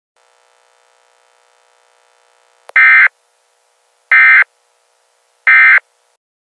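Three short bursts of Emergency Alert System SAME digital data tones, the screechy end-of-message code that closes an alert, about a second and a half apart and starting nearly three seconds in. A faint steady drone sits underneath until just before the end.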